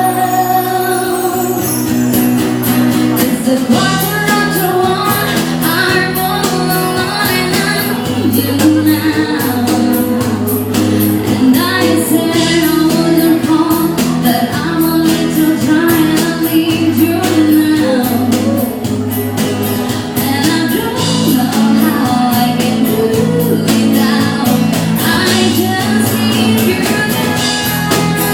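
Ska band playing live, with a singer over guitar, bass and drums keeping a steady beat.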